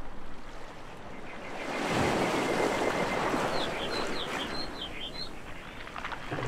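A rushing noise that swells up about two seconds in and slowly fades, with a run of short, birdlike chirps over it in the middle.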